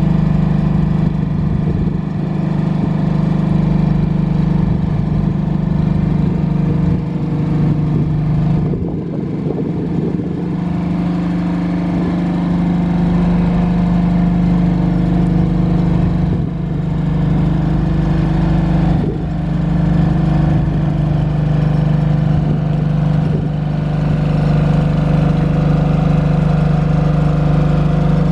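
Kohler diesel engine of a Tower Light VB-9 lighting tower running at a steady, constant speed, driving its generator.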